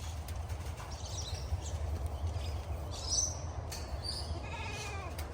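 A single bleat with a slightly falling pitch about four and a half seconds in, over a steady low rumble, with a few brief high bird chirps around three seconds in.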